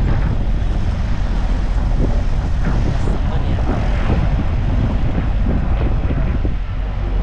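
Van engine running and road noise, heard on board the moving vehicle as a steady low rumble.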